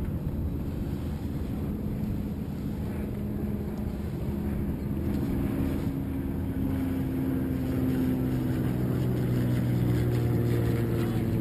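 Motorboat engine running steadily over wind and water noise. Its engine tone shifts and grows louder about halfway through.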